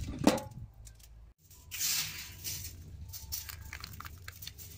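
Aluminium foil being handled, crinkled and folded by hand, with a burst of crackling about two seconds in and lighter crackles after. A short sound near the start from the barbecue lid being handled.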